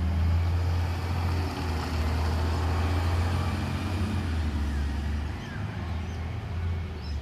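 Cleanaway recycling truck's diesel engine running with a low, steady rumble as the truck drives off along the street.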